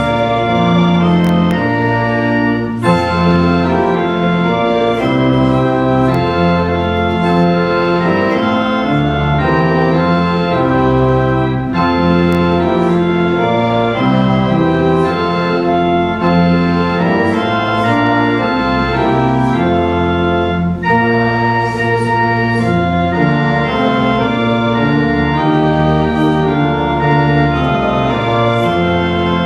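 Church pipe organ playing slow, sustained chords that change every second or so, with a short break between phrases about every nine seconds.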